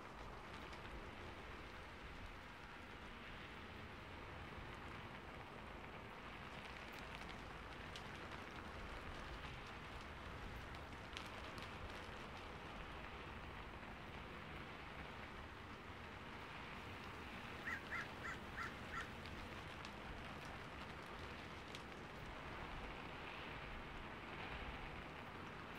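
Steady rain falling, an even soft hiss with a few faint drip ticks. About two-thirds of the way through, a quick run of five short, evenly spaced chirping notes stands out as the loudest sound.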